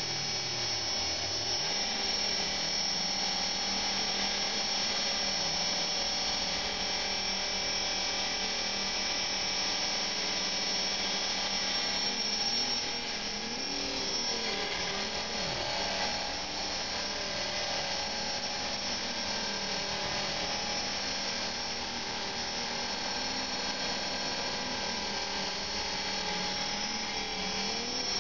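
E-sky Belt CP electric RC helicopter in flight: a steady whine from the electric motor and gears, with the rotor whirring. The lower pitch wavers up and down again and again as the helicopter manoeuvres.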